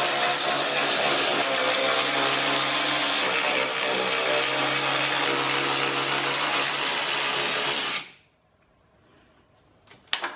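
Power drill motor running steadily at constant speed, then stopping about eight seconds in. A couple of sharp clicks follow near the end.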